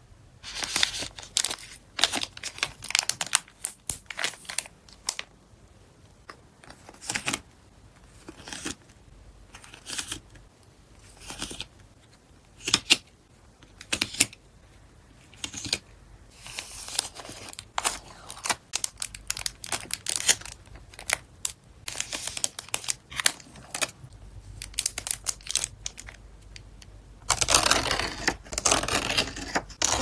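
Hands handling glossy photocards and paper and plastic packing materials: short crisp rustles, crinkles and clicks as cards are shuffled and laid out. Near the end comes a denser run of paper rustling and crinkling as memo-pad sheets are flipped.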